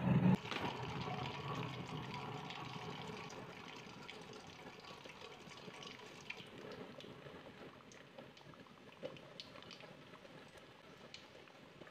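Chicken egg cracked into hot cooking oil in a wok: a loud burst of sizzling as it goes in, then a steady crackling sizzle of deep-frying that slowly dies down, with a few sharp pops near the end.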